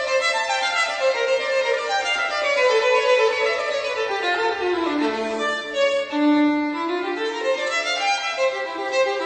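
Instrumental background music: a single melody line with sliding, gliding notes over sparse accompaniment.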